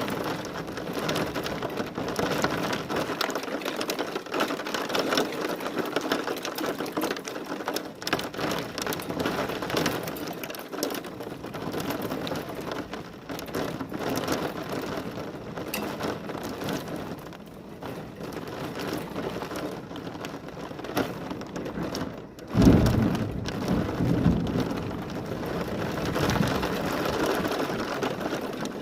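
Heavy rain pattering steadily. About three-quarters of the way through, a sudden loud thunderclap rumbles for a couple of seconds.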